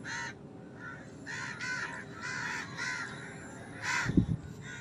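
Crows cawing over and over, about two caws a second. A single low thump about four seconds in.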